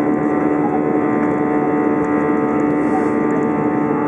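Steady hum inside the cabin of an Airbus A321, its engines and cabin air running with several fixed tones and no rise or fall in pitch.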